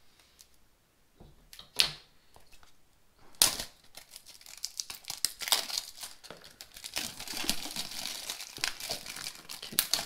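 Plastic shrink-wrap being torn open and peeled off a boxed product, crinkling. There are a couple of sharp rips near 2 and 3.5 seconds in, then steady crinkling from about 4 seconds on.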